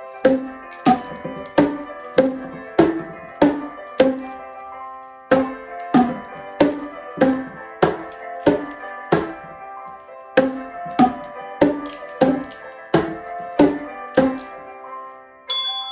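Boomwhackers, tuned plastic percussion tubes, struck in a steady rhythm, hollow pitched notes about three every two seconds picking out a simple tune. Just before the end, bright ringing chime-bar notes come in.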